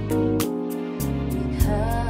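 Gospel ballad on a tremolo Rhodes electric piano patch, with synth bass and strings over steady drum-machine ticks about four a second.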